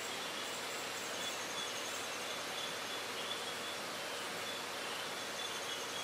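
Night rainforest insect chorus: high, pulsing trills repeating over a steady hiss.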